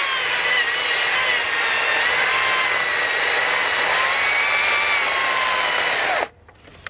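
Battery-powered STIHL electric chainsaw with a 16-inch bar running as it cuts a log: a steady motor-and-chain whine whose pitch wavers slightly. About six seconds in the pitch drops and it stops suddenly. The saw cuts out when pushed too hard, and the owner puts this down to too little power.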